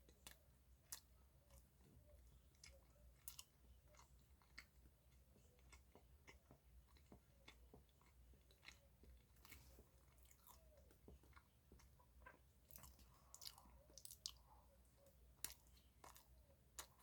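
Faint chewing of a soft chocolate roll cake: scattered quiet mouth clicks and smacks at an irregular pace.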